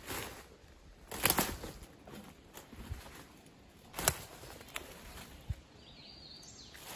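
Footsteps of a person walking over forest ground: a few uneven steps, three heavier ones among lighter ticks.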